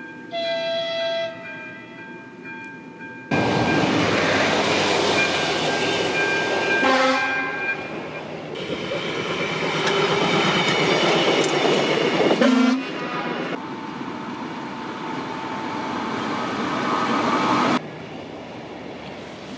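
Railway horn sounding in the first few seconds, then loud rolling noise of trains passing close by, with sudden changes between shots. The train passing in the middle is a ČD class 810 diesel railbus.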